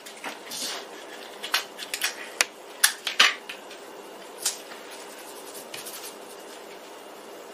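Scotch tape being pulled off the roll and torn, a string of short, sharp crackles over the first few seconds, then pressed down onto paper on a cardboard mat.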